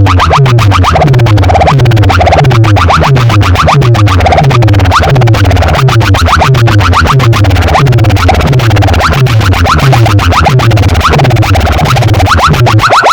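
Loud electronic dance music blasting from a DJ sound-box system, with a heavy bass line of repeated falling sweeps, about one and a half a second.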